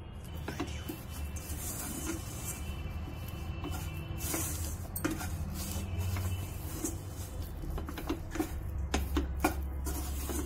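Wooden spatula scraping and knocking against a stainless steel kadhai as a crumbly makhana-cashew mixture is stirred into sugar syrup, with irregular taps of the spatula on the pan.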